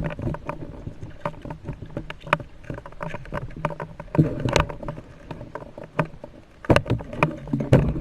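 Water sloshing and splashing with irregular sharp clicks and knocks over a steady low hum, the loudest knocks about four seconds in and again near the end.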